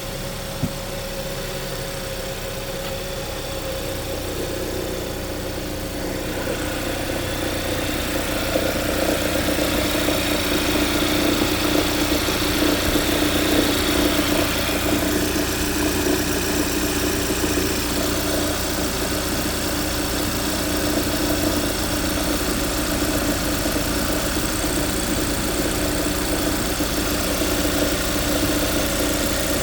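2015 Hyundai Santa Fe running at idle in reverse just after a cold start, with a rattle over the steady engine sound that grows louder for several seconds and then settles. The rattle comes only on the first cold start or after a long cool-down.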